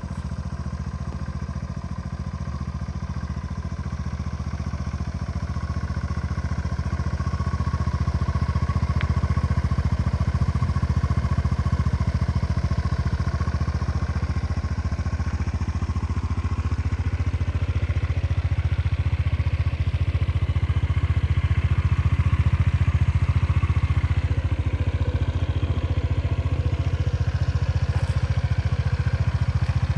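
Honda PCX125 scooter's single-cylinder four-stroke engine idling steadily through an aftermarket Moriwaki exhaust, growing louder over the first several seconds and then holding steady.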